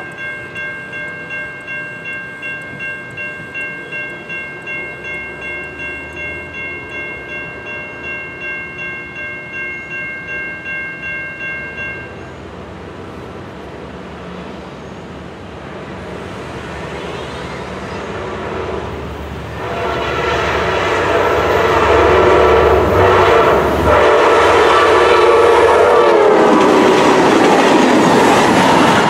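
A railroad crossing bell rings at about two strokes a second and stops about twelve seconds in. Then an Amtrak diesel passenger train approaches, blowing its horn, which drops in pitch as it passes, and the train rushes by at speed.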